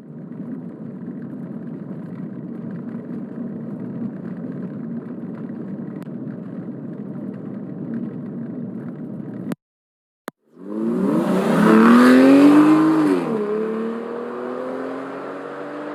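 Two car sound effects in turn. First comes a steady, noisy car rumble with no clear engine note, which cuts off sharply about nine and a half seconds in. Then, after a single click, a car engine comes in, revs up loudly, drops back and settles into a steady run.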